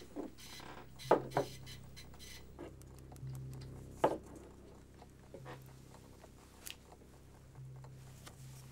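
A mug and a thin stirrer being handled on a desk: a few sharp knocks and taps, the loudest two close together about a second in and one about four seconds in. Under them runs a low hum that comes and goes.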